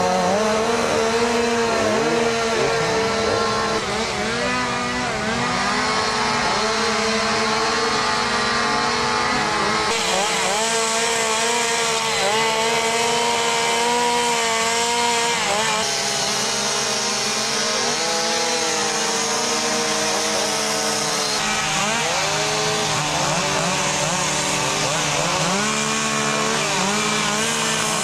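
Two-stroke petrol chainsaw carving into a wood block, the engine revving up and down over and over as it cuts. The sound changes abruptly a few times.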